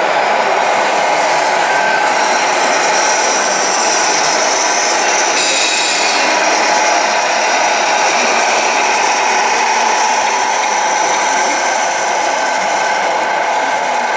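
Small electric motors and gearing of radio-controlled model trucks whining steadily, several tones at once. A higher whine joins for a second or two about halfway through.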